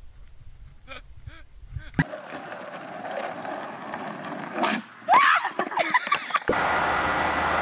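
Skateboard wheels rolling on asphalt, then a crash as the rider falls onto the pavement, followed by yelling.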